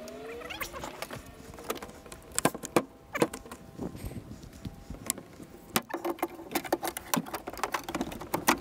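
Scattered clicks, knocks and clatters of gear being handled on a boat deck, with a deck hatch lid opened, coming thicker and faster in the second half.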